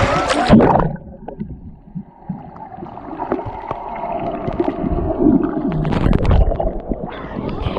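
Sea water splashing at the surface, then cut off about a second in as the camera goes under: muffled underwater sound of the sea with faint bubbling, small clicks and a low rumble from swimmers kicking nearby.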